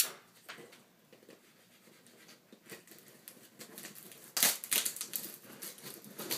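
Knife cutting through the packing tape on a cardboard shipping box: scattered scratches and ticks, then a louder run of rasping, tape tearing and cardboard crinkling from about four and a half seconds in.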